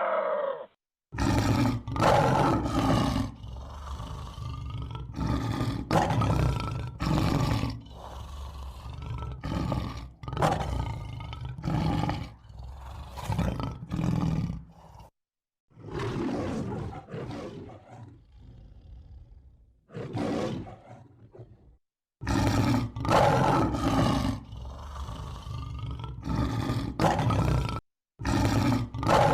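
A large wild animal roaring: a long series of deep, rough calls coming about one or two a second, broken three times by short, abrupt silences where the recording is cut.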